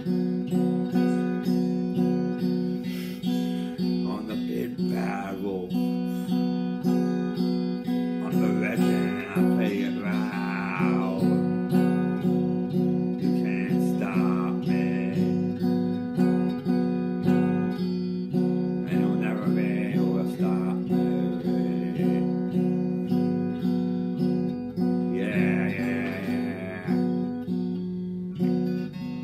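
Electric guitar strummed in a steady rhythm of about two strokes a second, repeating the same chord. Short vocal phrases come in over it now and then.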